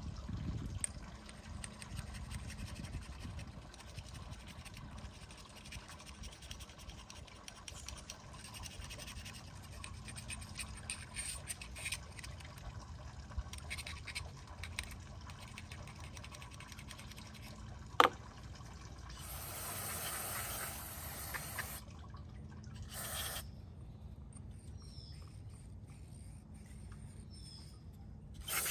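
Carburetor parts being swished and rinsed in old gasoline, with liquid trickling and small handling clicks and one sharp click about two-thirds of the way in. Just after that comes a hiss of spray lasting about two and a half seconds, then a short second burst, like carburetor cleaner sprayed from an aerosol can.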